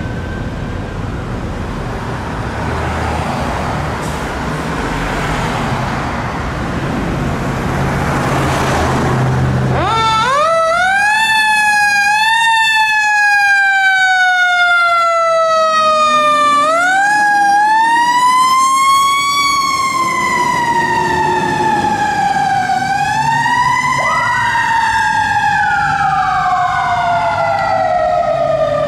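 Fire engine running for about the first ten seconds, then its siren winds up and wails, each sweep rising quickly and falling slowly. Near the end a second siren tone joins in.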